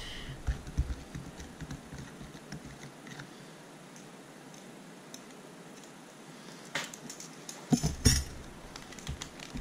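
A metal spoon clinking lightly in a plastic tub of water as brine is stirred in, then a quiet stretch, then a few louder knocks near the end as the spoon is set down on the table.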